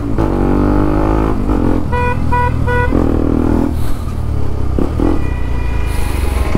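Motorcycle engine running at low speed in traffic, with three short horn beeps about two seconds in.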